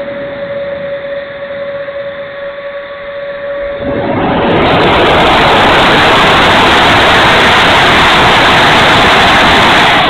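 70mm electric ducted fan of an E-flite F-16 RC jet heard from an onboard camera. For the first four seconds it gives a steady whine; then a loud, even rushing noise of fan and airflow over the camera takes over and holds to the end.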